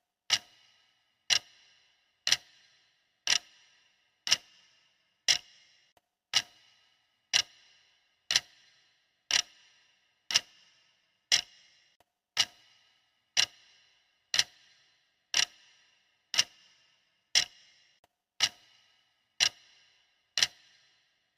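Clock-style ticking of a stopwatch timer, one sharp tick each second, each tick followed by a short ring.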